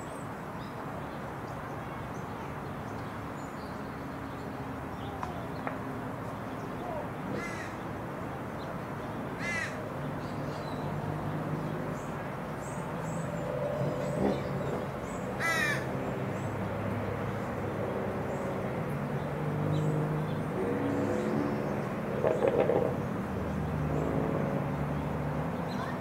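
Bald eagle giving a few short, high-pitched chittering calls, the loudest a little past the middle. Lower calls repeat through the second half over steady outdoor background noise.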